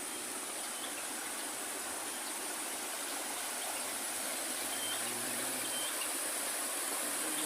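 Steady rushing of flowing water, with a constant high hiss above it and a few faint short chirps.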